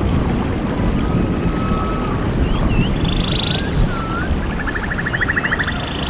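Rainforest ambience: a steady low rushing of water with animal calls over it. A long level whistle comes about a second in, then from about halfway several swooping whistled notes, each followed by a rapid pulsed trill, at a higher and a lower pitch.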